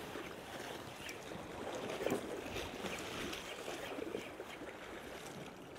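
Seaside ambience: a steady, fairly quiet wash of sea water and wind, with a few faint ticks.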